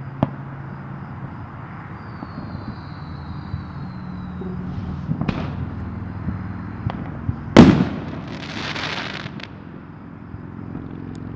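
Fireworks going off at a distance: a few scattered bangs, the loudest about seven and a half seconds in, followed by about a second and a half of hiss. A steady low hum runs underneath.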